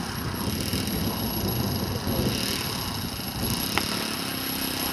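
Small single-cylinder model-aircraft engine converted from glow fuel to petrol, running steadily as the radio-controlled plane taxis on grass. A single sharp click comes near the end.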